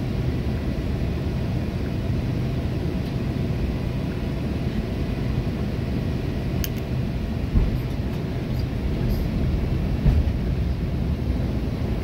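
Steady low rumble of an Airbus A330's cabin on final approach, engine and airflow noise heard from inside the cabin. A sharp click comes about seven seconds in, with a couple of dull thumps soon after.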